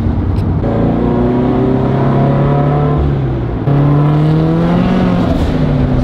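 Turbocharged Scion FR-S flat-four engine accelerating under load. The revs climb steadily, drop suddenly at a gear change a little past halfway, then climb again and ease off near the end.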